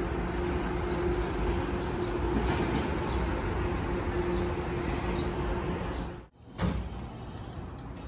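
Steady outdoor city ambience with a low held hum and a few short high chirps. About six seconds in the sound cuts out abruptly, a brief whoosh follows, and a quieter ambience carries on.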